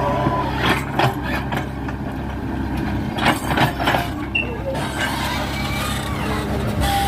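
Excavator's diesel engine running steadily, with a cluster of sharp knocks about a second in and more between three and four seconds in.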